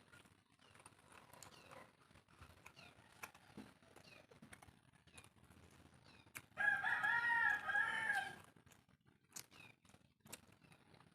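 A rooster crows once, one long call of nearly two seconds starting about six and a half seconds in. Faint clicks and smacks of someone eating are heard around it.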